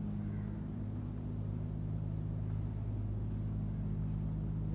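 A steady low machine hum that holds an even pitch and level throughout.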